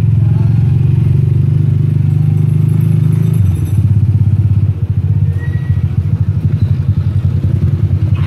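Motorcycle-type engine running close by with a steady low throb. About three and a half seconds in, its sound changes and turns more uneven and pulsing.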